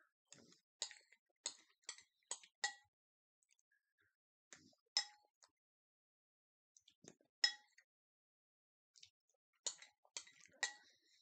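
Spoon clinking against a ceramic soup bowl as soup is scooped up: a quick run of light clinks in the first few seconds, then scattered clinks with pauses between.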